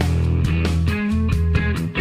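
Background music: a rock-style track with guitar and a steady beat.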